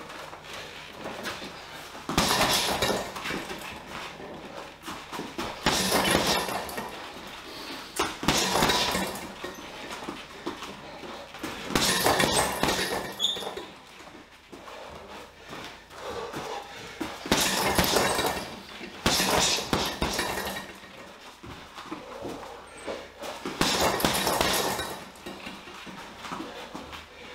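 Boxing gloves striking a Leone heavy punching bag in quick combinations, a flurry of several punches every few seconds with short pauses between.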